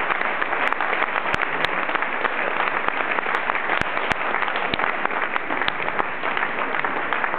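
Audience applauding, a steady dense clapping with a few sharper, louder individual claps standing out.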